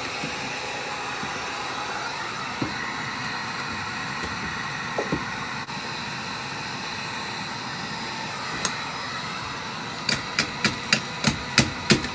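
Hand-held hot-air blower running steadily while melting freezer ice, with a few single knocks. About ten seconds in, a square pan starts knocking at the ice in a quick run of sharp knocks, about three a second, to chip it off the freezer's cooling panel.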